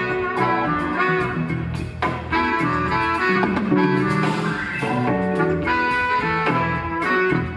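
Live jazz-fusion band playing: horns, guitar and keyboards over bass and drums, with a steady beat.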